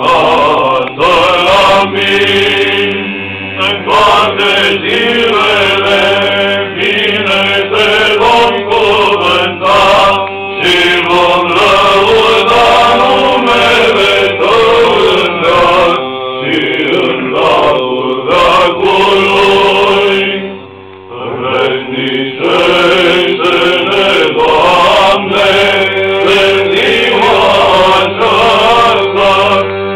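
Men's voices chanting Orthodox liturgical chant, with a brief break about two-thirds of the way through.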